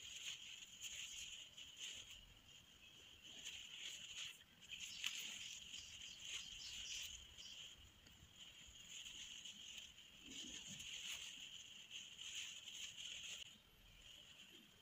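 Faint, scratchy rustling in repeated bursts as a long needle and thick thread are worked through tight crochet and djellaba fabric.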